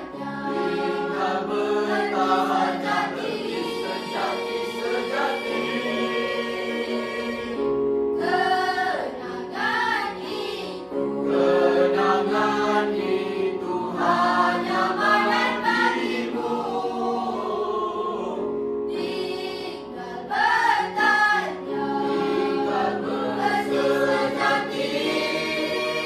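Mixed choir of girls and boys singing a Malay song in harmony, with held chords under a moving melody.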